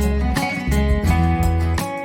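Background music: a rhythmic track with plucked guitar and a strong bass line.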